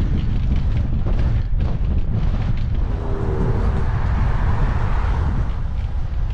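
Wind buffeting the microphone while cycling, a steady low rumble. A car passes about three seconds in, its noise swelling and fading by about five and a half seconds.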